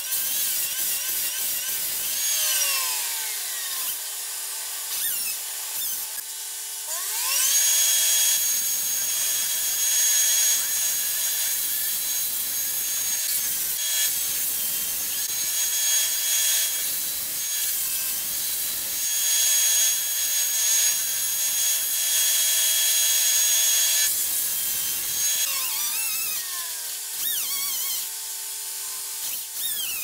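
Tree-removal power equipment running with a high whine that rises and holds for several seconds, then falls, twice.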